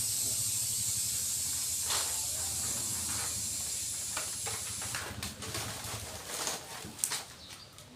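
An air-blowing power tool running with a steady hiss over a low motor hum, switched off about five seconds in, followed by a few light clicks and knocks.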